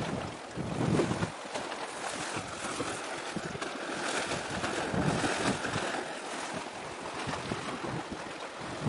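Wind buffeting the microphone in uneven gusts over a steady wash of sea and surf.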